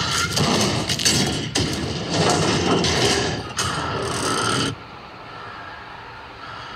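Film sound effects of a pickup truck being battered: loud, dense metal banging, crashing and scraping with many sharp knocks. About two-thirds of the way in it cuts off suddenly to a quiet, steady low hum.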